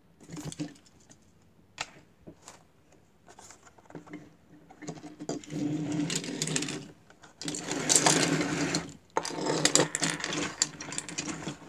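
Die-cast toy cars and their packaging being handled on a wooden table. A few scattered clicks come first, then from about five seconds in there are long stretches of rapid clicking and rattling.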